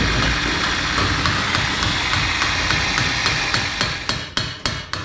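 Steady machinery running with a light, regular ticking about three times a second. Near the end the running noise fades out among a few sharp metallic clanks.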